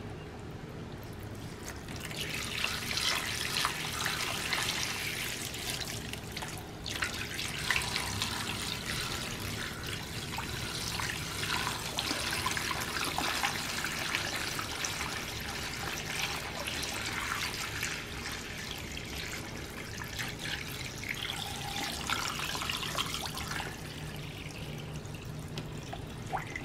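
Vinegar poured in a steady stream from a plastic gallon jug into a plastic tub, splashing and trickling over the steel plates lying in it. It starts about two seconds in and breaks off briefly once before carrying on.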